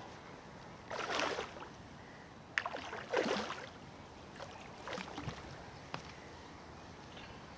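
Hooked carp splashing at the surface close to the bank during the fight, in several short bursts, the loudest about three seconds in.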